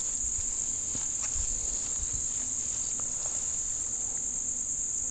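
Steady, high-pitched drone of an insect chorus, crickets or cicadas, running without a break.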